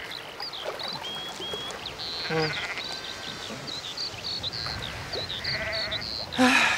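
Sheep from a grazing flock bleating a few times, the loudest call near the end, over a continual run of short, high chirps.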